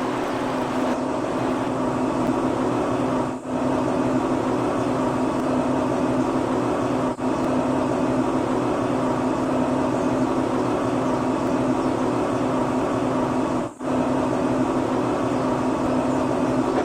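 Small electric motor running steadily with a hum, broken by three very brief dropouts.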